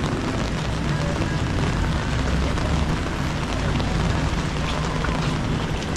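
Steady rain on a city street: an even hiss with a heavy low rumble underneath.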